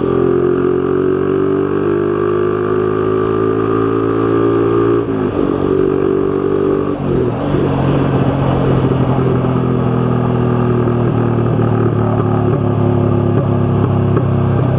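Z200S motorcycle with an open Akrapovic Evo GP exhaust under hard acceleration. The engine note climbs through the revs and drops sharply at two gear shifts, about five and seven seconds in. It then settles into a lower, steady note with a string of exhaust pops (backfires).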